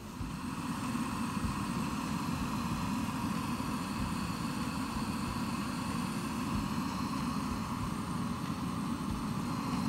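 Portable gas camping stove burner running with a steady rushing hiss, heating water to the boil.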